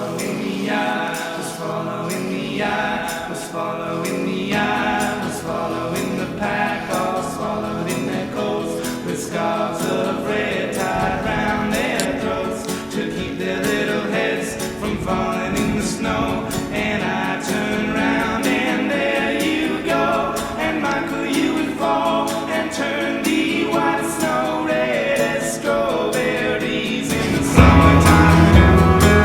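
Background music with sung vocals. Near the end a louder part with heavy bass comes in.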